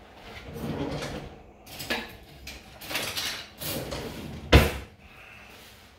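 Kitchen handling sounds: containers and utensils being moved and scraped on a counter, with one sharp knock about four and a half seconds in.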